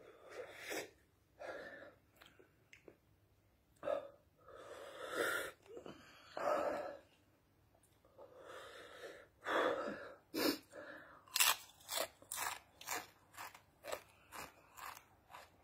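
A person chewing crunchy corn chips with the mouth near the microphone: several heavy, noisy breaths over the first ten seconds, then a quick run of crisp crunches, about two or three a second, through the last five seconds.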